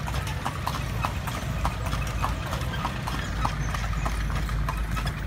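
Hooves of a horse pulling a calesa clip-clopping on the street, about two steps a second, over a low steady rumble.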